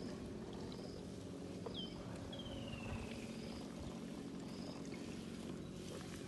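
Baby African elephant suckling milk from a large bottle, over a steady low rumble. Faint high chirps and a falling whistle about two seconds in.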